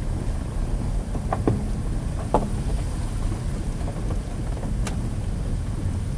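Car driving slowly on a forest road, heard from inside the cabin: a steady low rumble of engine and road noise, with a few sharp knocks and rattles from bumps in the road.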